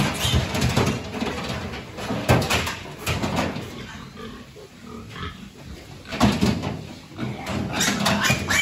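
Piglets squealing and grunting in repeated harsh bursts as they are caught and handled in a pen.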